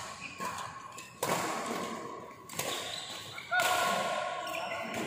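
Badminton rally: sharp racket hits on the shuttlecock about a second apart, each one echoing in the hall.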